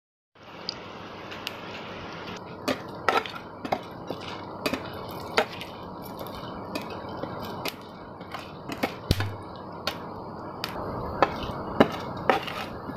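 Whole spices (bay leaves, cinnamon, cardamom, cloves and black peppercorns) frying in hot oil in a metal kadai: a steady sizzle with frequent, irregular sharp clicks of a metal spatula stirring and tapping against the pan.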